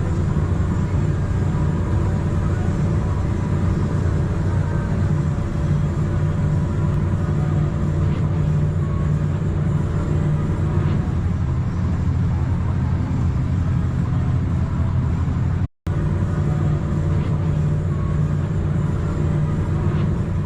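Heavy farm machine's engine running steadily at working speed during wheat harvesting, a deep continuous drone. It cuts out for a split second about three-quarters of the way through, then carries on unchanged.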